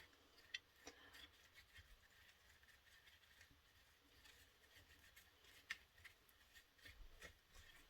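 Near silence with faint, scattered small clicks and light scratching, from a small paintbrush dabbing pigment powder into a silicone resin mould. The loudest clicks come about half a second in and near six seconds in.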